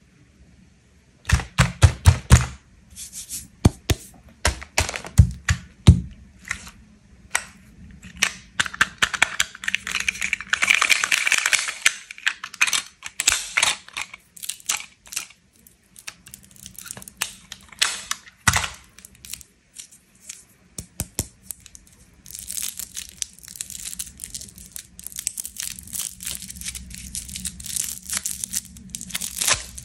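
Hard plastic clicks and snaps as a plastic candy toy is handled and opened, followed by a long crinkling and tearing as a Chupa Chups lollipop's wrapper is peeled off.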